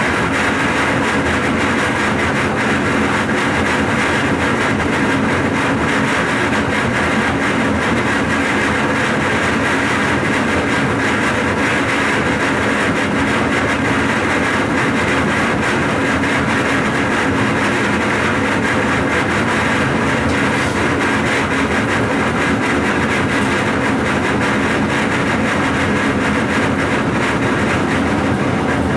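DB class 425 electric multiple unit running steadily at speed, heard from the driver's cab: an even rolling noise from wheels and track with a few steady held tones under it.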